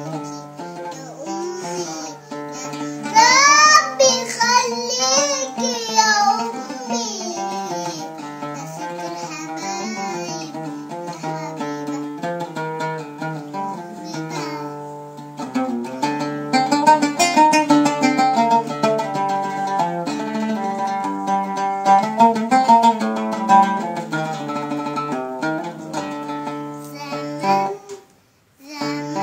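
Music led by a plucked string instrument, with steadily changing notes and a wavering high passage a few seconds in; it breaks off for about a second near the end, then resumes.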